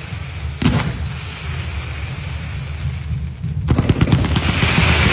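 Fireworks going off: one sharp bang about half a second in, a low rumble after it, then near the end a fast crackling run of reports over a hiss as more shells launch.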